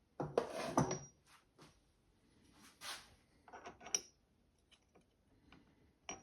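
Small steel parts and tools being handled and set down at a milling machine vise: a rattling clatter in the first second, then a few separate clinks and knocks, some with a short metallic ring.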